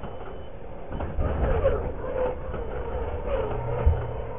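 Two radio-controlled Clod Buster-style monster trucks racing on dirt. Their electric motors whine, rising and falling in pitch with the throttle, and there are low thumps as the trucks land and bounce, the sharpest near the end.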